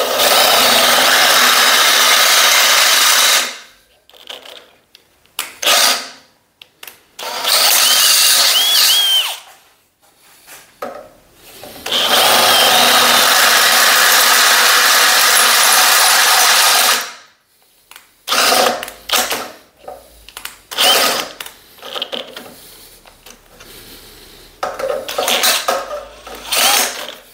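Cordless drill boring out existing holes in a metal slide rail, enlarging them to take rivet nuts. It runs at a steady speed in three long runs with pauses between, then in several short bursts toward the end.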